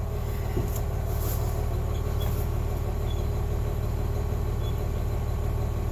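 Engine idling steadily: an even low rumble with a faint steady hum above it, no revving and no pull-start strokes.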